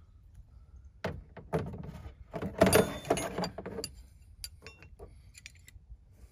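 Metal hand tools clinking and rattling as they are handled and set down: scattered clicks, a dense clattering rattle about two and a half to three and a half seconds in, then a few lighter clicks and a short metallic ring.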